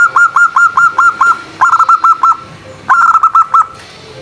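Zebra dove (perkutut) cooing: rapid runs of short, clipped notes, about six a second, in three bursts with short pauses between them, the last ending shortly before the end.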